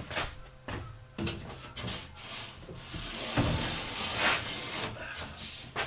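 A sheet of plywood being slid and shifted into place on a wooden support block: wood rubbing and scraping, with several light knocks.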